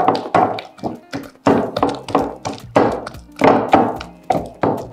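Pestle pounding boiled cocoyam in a mortar: repeated dull thuds, about two to three a second, working the cocoyam into a smooth paste to thicken the soup.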